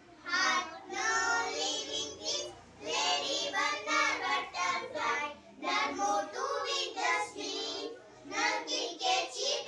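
A small group of young girls singing a poem together as an action song, in short phrases with brief pauses between them.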